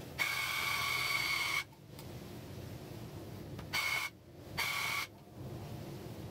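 Electric tufting gun running in stop-start bursts: one of about a second and a half, then two short ones about two seconds later. Each burst is a steady high whine over a rapid buzz, with a low hum in the gaps.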